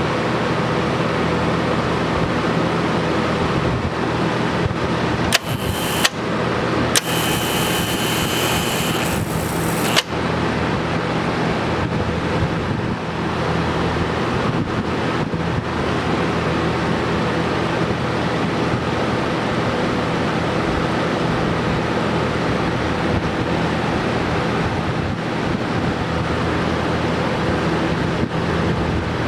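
TIG welder powered up with a steady electrical hum and fan noise. Twice, about five and seven seconds in, a harsh hissing buzz starts and stops suddenly, the second lasting about three seconds, as the adjusted relay points let the high-frequency circuit fire.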